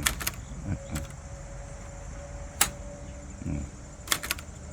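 Olivetti Lettera 22 portable typewriter keys struck one at a time, each a sharp typebar click, spaced out at first and then three in quick succession near the end.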